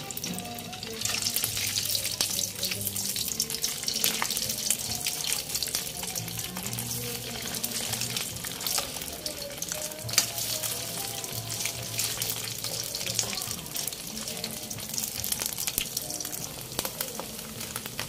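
Slices of canned luncheon meat frying in hot oil in a steel wok, a dense sizzle with fine crackling that picks up about a second in and keeps on steadily.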